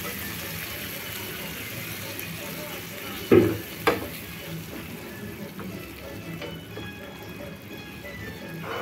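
Dal simmering on low flame in a kadai with its oil tempering, a steady sizzle and bubbling. A metal spoon stirs it and knocks against the pan twice about three and a half seconds in.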